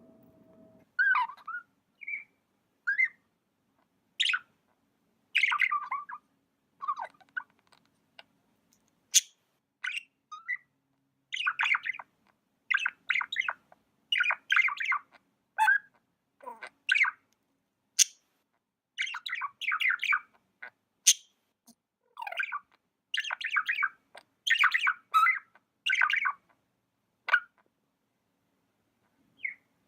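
Pet budgie (budgerigar) chirping in short runs of quick chirps, with pauses of about a second between them, the runs coming thicker in the second half.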